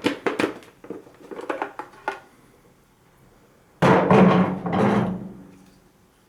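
Parts being handled: a quick run of clicks and knocks, then, about four seconds in, a louder scraping noise that fades out over a second or so.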